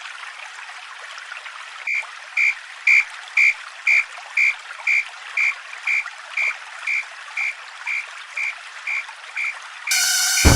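Japanese level-crossing warning alarm ringing its 'kan kan' tone about twice a second, loudest at first and slowly fading, over a steady hiss. Near the end a loud sustained tone with many overtones cuts in.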